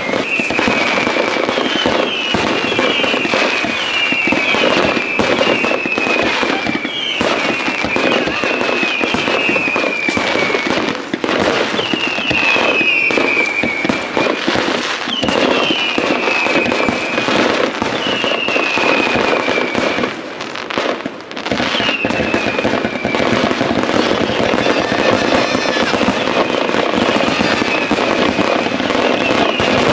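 Fireworks display: a steady string of loud bangs and crackles. Over it, falling whistles repeat every second or two.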